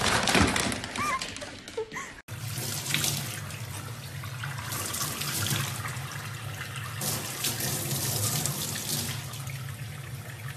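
Kitchen tap running into a stainless-steel sink, a steady rush of water with small splashes as a baby chimpanzee plays in the stream. Before the sound cuts over to the water about two seconds in, there are a few loud knocks and short squeaks.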